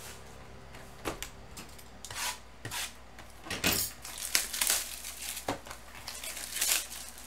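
Cardboard trading-card hobby boxes being handled and stacked by hand: crinkling of their plastic wrap with about seven sharp knocks and rustles as the boxes are gripped and set down.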